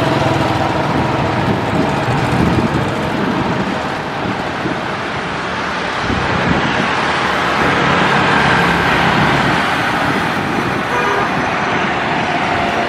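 Boeing 777 on final approach with its gear down, its twin jet engines giving a loud, steady roar with a faint whine above it.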